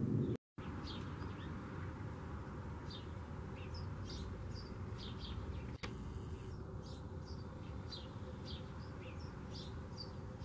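Small birds chirping in quick short high notes, many times over, above a steady low outdoor background rumble.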